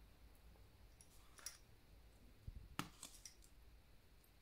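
Near silence with a few faint clicks, the loudest a little under three seconds in: a metal spoon tapping against dishware while spooning spice seasoning out of a glass jar.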